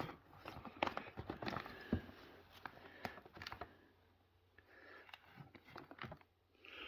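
Faint handling noise: scattered clicks and soft rustling, growing quieter partway through, with a short breath-like rush near the end.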